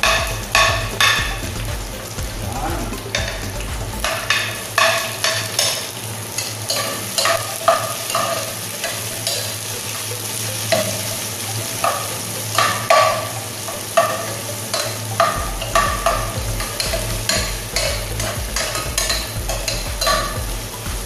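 Garlic and onion sautéing in oil in a pot, a steady sizzle, with a metal spoon stirring and scraping against the pot in repeated irregular strokes.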